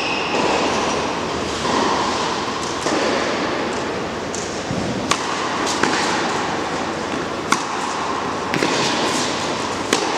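Tennis ball struck by rackets during a rally on an indoor court: a few sharp pops one to two and a half seconds apart, over a steady rushing background noise.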